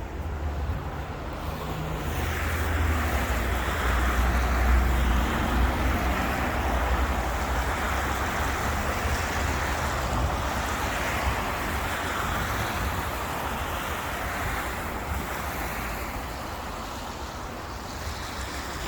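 Road traffic noise swelling and then slowly fading, like vehicles' tyres passing on a city avenue, over a steady low wind rumble on the microphone.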